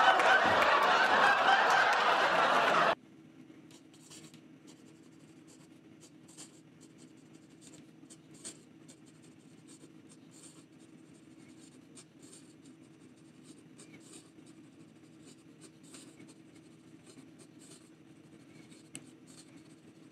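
Platinum Balance fountain pen nib scratching quickly across lined paper in fast looping strokes, faint and steady. It is preceded by about three seconds of loud TV-sitcom audio with voices, which cuts off abruptly.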